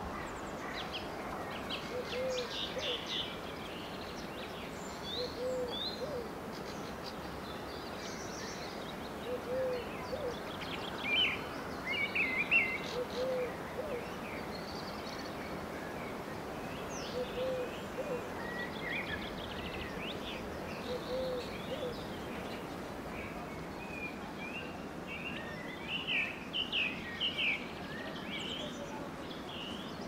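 Park ambience: a pigeon cooing about every four seconds, six times in all, with songbirds chirping and trilling over a steady hum of distant traffic.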